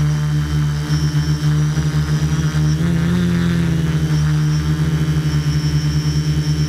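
Multirotor drone's electric motors and propellers buzzing steadily, heard from a camera mounted on the drone itself, with a fast pulsing beat. About three seconds in the pitch rises for a moment, then settles back.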